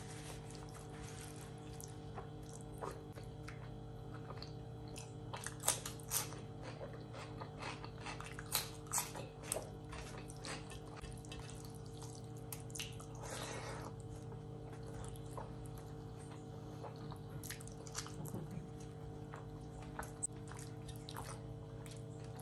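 Wet, sticky squishing of fingers mixing rice into curry gravy on a steel plate, together with chewing. A steady low hum runs underneath.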